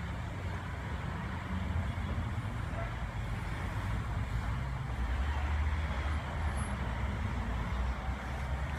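Steady low rumble of an electric train running near the level crossing, growing somewhat louder about five seconds in.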